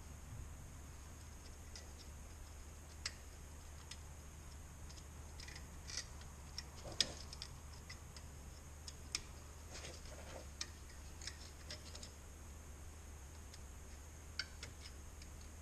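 Light metal clicks and taps at irregular intervals, about a dozen, from tools working the pad retaining pins and spring clip out of a front brake caliper, over a steady low hum.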